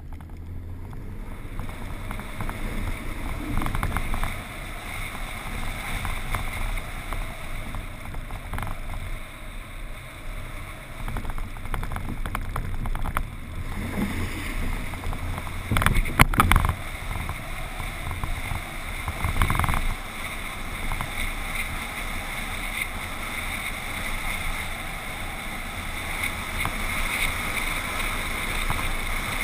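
Ford F-150 pickup truck driving slowly over a rough, sandy dirt track: a steady low rumble of engine and tyres with wind noise on the microphone. A little past halfway comes a cluster of knocks and jolts as the truck goes over ruts.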